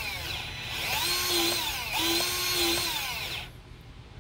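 Battery-powered grease gun motor whining as it pumps grease into a new wheel bearing through a hub greaser. The whine rises, holds and falls in separate runs: one winds down just after the start, then two more follow before it stops near the end.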